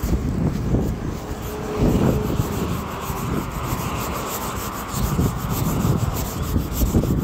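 Wind buffeting the microphone of a camera on a moving bicycle: an uneven, rumbling rush of air with road noise beneath it.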